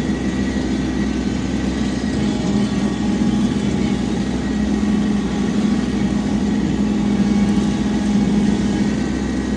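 Tractor engine running steadily while pulling a bush hog rotary mower, a constant low hum with no change in speed.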